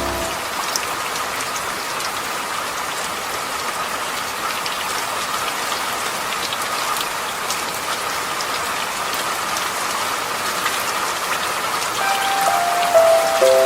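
Steady rain falling on a surface, an even hiss with scattered small ticks of drops. Soft sustained music notes come back in near the end.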